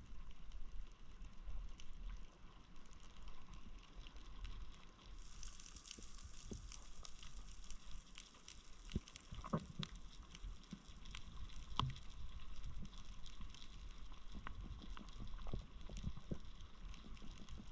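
Underwater reef ambience: a steady dense crackle of tiny clicks over a low rumble, with a couple of louder single clicks partway through.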